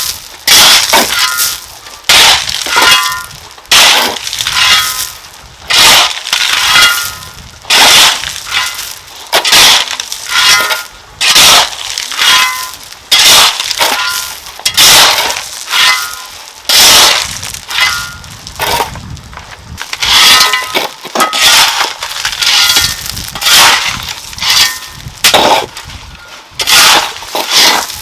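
A metal tool striking brick or stone again and again, about one blow a second, many blows ringing briefly with a clang.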